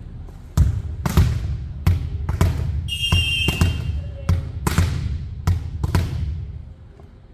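Volleyballs thudding on hands and the hardwood gym floor, a quick irregular series of about a dozen impacts that echo around the hall. A short high-pitched tone lasting about half a second cuts in roughly three seconds in.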